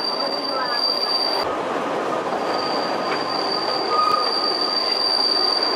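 Narrow-gauge Kurobe Gorge Railway trolley train heard from its open car: the steady running noise of wheels on rail, with a thin, steady, high wheel squeal over it that drops out briefly about a second and a half in.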